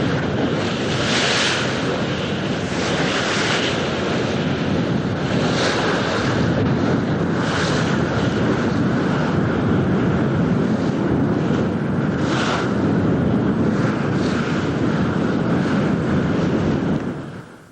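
Wind buffeting the microphone in uneven gusts over a steady rush of wind and water. It cuts off abruptly near the end.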